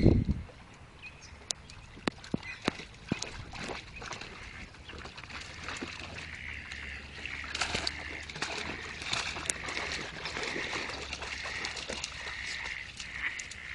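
Wild ducks calling from the pond, a dense chorus of quacks that sets in about halfway through and grows louder. A few sharp clicks come in the first few seconds.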